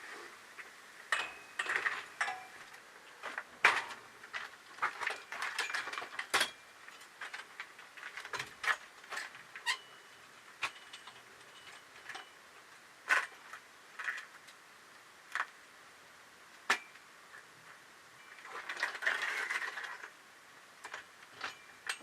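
Irregular sharp clicks and light clinks of small hard objects, a few ringing briefly, with a short rustling noise near the end.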